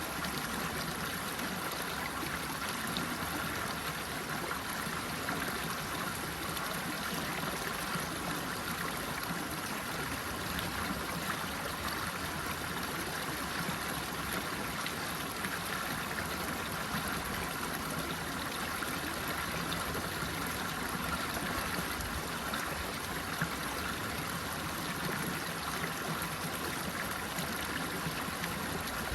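Running water flowing steadily, an even rushing with a light trickle and gurgle.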